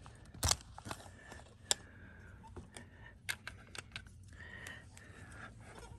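Scattered clicks and taps of a plastic quick-release plate and tripod parts being handled and fitted together, with the sharpest click about half a second in.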